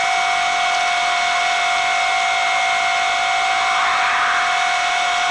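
Steady high-pitched whine over a loud rush of air, heard inside the cabin of a McDonnell Douglas MD-88 jet airliner.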